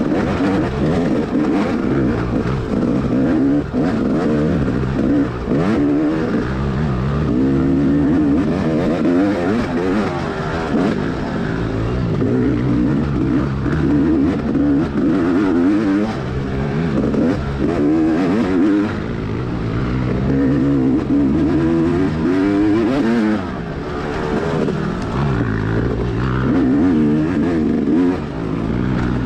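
Dirt bike engine under race load, revving up and dropping back over and over as the throttle is opened and rolled off.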